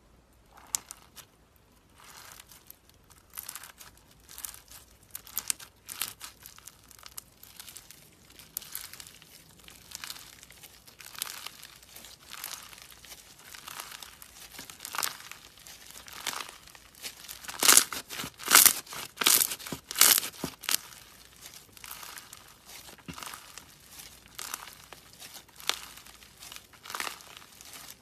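Bead-filled slime squeezed, pressed and stretched by hand, giving irregular crackling, popping and crunching as the beads and slime are worked. The crackles come thick and uneven, loudest in a flurry a little past the middle.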